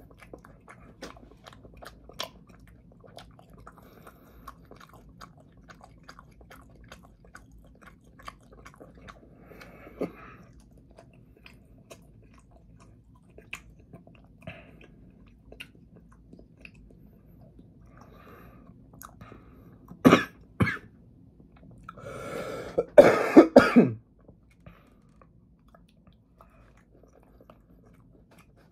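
Quiet chewing of french fries with faint mouth clicks, then about two-thirds of the way through two sharp coughs followed by a loud fit of coughing and throat clearing lasting about two seconds.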